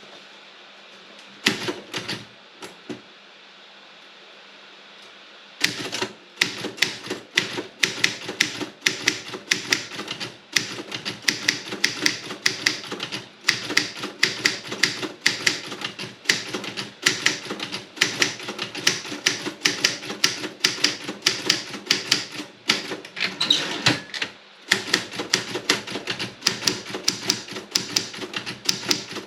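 Robotron 24 typewriter being typed on, its type bars striking in sharp clicks. A few keystrokes come first, then after a short pause a fast, continuous run of several strokes a second, broken once by a brief gap near the end.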